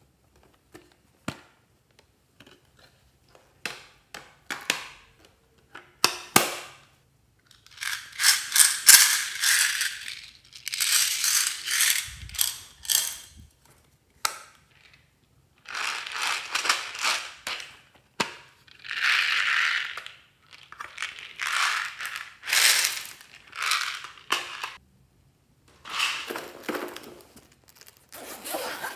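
Plastic pencil-case lids and latches clicking as they are opened, then a zipper on a fabric pencil case pulled open in a series of ratcheting rasps, each lasting a second or two.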